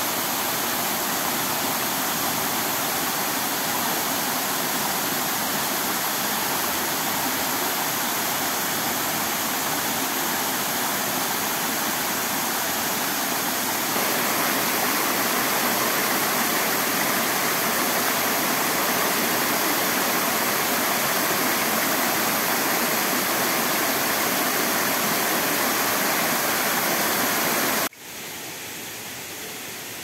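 Waterfall cascading down a rock face into a pool: a steady rush of falling water. It grows slightly louder about halfway through and drops abruptly to a quieter rush near the end.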